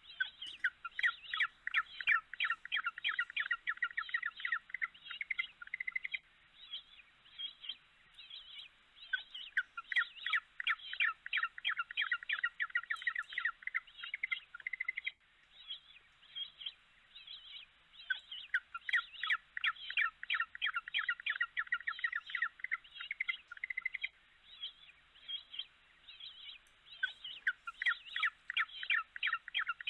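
Birds chirping in rapid, dense trilled phrases about six seconds long, with scattered chirps between them; the same pattern comes back about every nine seconds, like a repeating loop.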